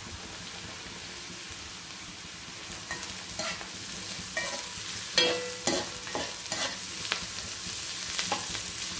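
Sliced button mushrooms and chopped vegetables sizzling in hot oil in a wok on high flame. From about three seconds in, a slotted metal spatula stirs and scrapes against the wok in a run of clacks, loudest about five seconds in.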